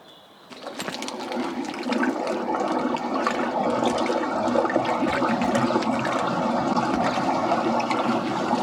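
Backed-up wastewater rushing away through a freshly unblocked drain in a manhole. The rush builds up about half a second in and then runs steadily, the sign that the blockage has cleared.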